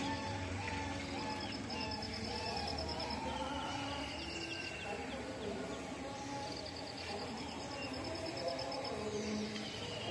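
Outdoor background sound: repeated high chirping trills, each about a second long, over a steady low murmur.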